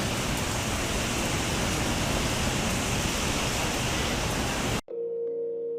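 Steady hiss of heavy rain. About five seconds in it cuts off abruptly and soft music with sustained bell-like tones begins.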